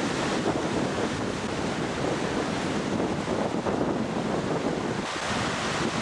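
Wind buffeting the microphone over waves on a large reservoir: a steady rushing noise that swells and eases slightly.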